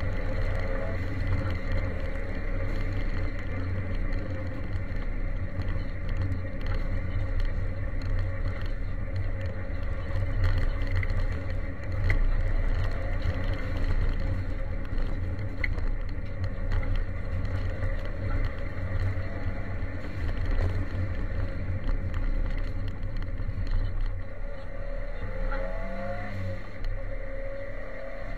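Ford Sierra Cosworth 4x4's turbocharged four-cylinder rally engine running hard, heard from inside the cabin, with the revs rising and falling near the start and again near the end. Gravel crackles and scrapes under the car on the loose road surface.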